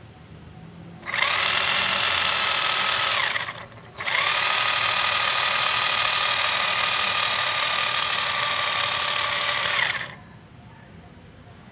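Blue 5-in-1 combo power tool running with its sanding head against a wooden handle: a steady motor whine in two runs, about two seconds and then about six seconds, winding down at each stop.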